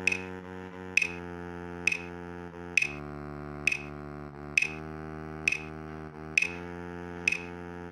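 Synthesized baritone saxophone playback from Finale notation software, playing a slow melody of low held notes, with a metronome clicking evenly at 66 beats a minute, about nine clicks.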